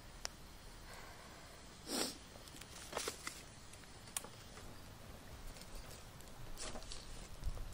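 Small twig fire crackling in a folding metal fire stand: a few sharp pops over a faint steady hiss. Two brief rustling scrapes, about two seconds in and near the end, come as a foil-wrapped sweet potato is set in with tongs.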